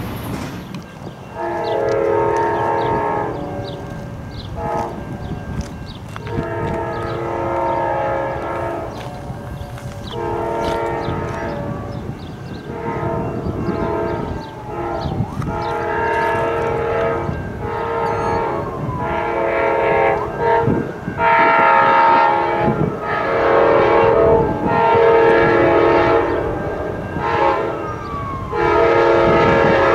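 Locomotive multi-chime air horn sounding a series of long and short blasts, over the low rumble of an approaching train. The blasts grow louder toward the end.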